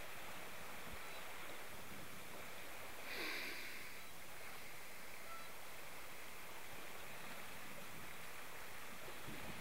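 Steady wash of sea water along the shore, with one brief, higher sound about three seconds in.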